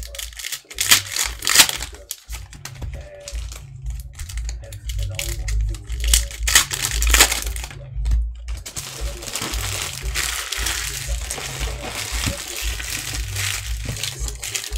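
Rustling and crinkling as sports trading cards and their packs are handled, with louder rustles about a second and a half in and again around seven seconds, then a steady crinkle through the last few seconds.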